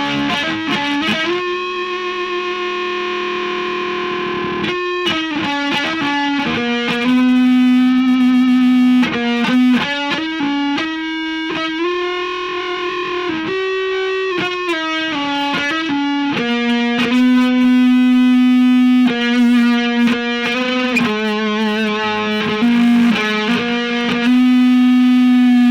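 Electric guitar played through distortion, picking single-note lines mixed with long sustained notes.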